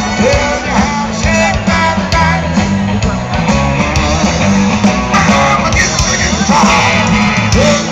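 Live band playing upbeat rhythm and blues in the beach-music style, with singing, guitar and a steady bass line.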